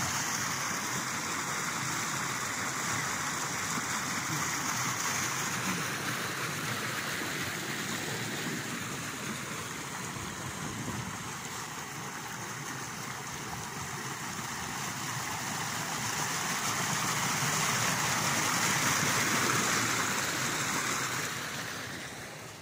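Muddy rainwater rushing and splashing through a narrow concrete street drain running full with storm runoff, a steady gushing rush. It dips a little midway, swells again and fades out near the end.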